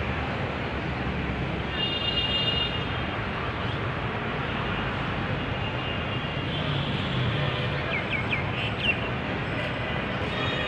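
Steady city traffic noise, with a brief high steady tone about two seconds in and a few short chirps near the end.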